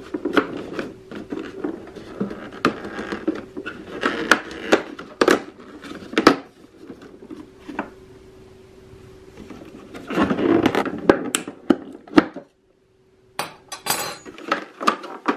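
A cardboard advent-calendar door pried open and a small glass jar pulled out of its compartment: scattered clicks, scrapes and light knocks of cardboard and glass, with a faint steady hum underneath.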